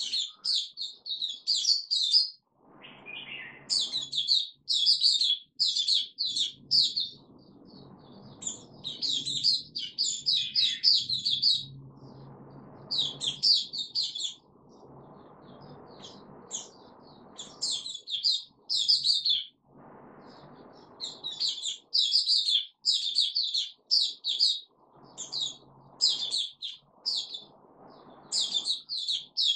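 Caged white-eye (puteh) singing: fast runs of high twittering chirps, each a second or two long, repeated with short pauses.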